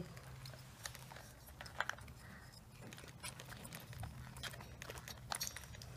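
Faint, scattered clicks and light taps of hands handling a nitro RC buggy, over a low steady hum.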